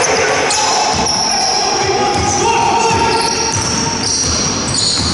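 Basketball game in a large, echoing sports hall: the ball bouncing on the wooden floor, shoes squeaking, and players calling out.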